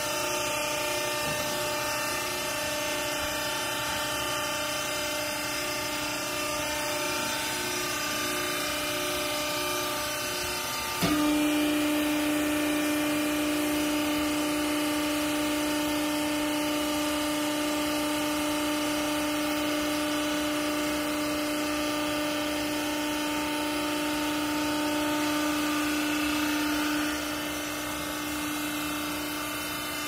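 Vertical hydraulic clothes baler's electric motor and pump running with a steady hum. About eleven seconds in the sound jumps louder into a strong steady tone that holds until near the end, then drops back.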